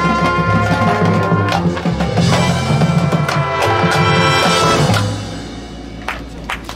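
Marching band of brass, woodwinds and percussion playing sustained chords over drums, with timpani in the front ensemble; the music cuts off about five seconds in and rings away, with a few sharp hits near the end.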